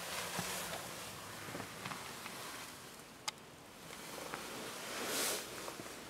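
Faint handling and movement noise inside a parked car's cabin, with one sharp click about three seconds in and a soft swell of noise near the end.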